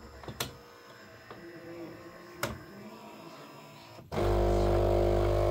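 Philips LatteGo espresso machine starting its coffee brew: two mechanical clicks, then about four seconds in its vibration pump switches on with a sudden loud, steady buzz as it pushes water through the coffee.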